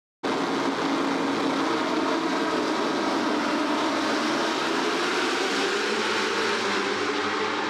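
A full grid of World Superbike four-cylinder race motorcycles revving on the start line and launching away together at full throttle. The sound is a dense, steady wall of engine noise that starts suddenly.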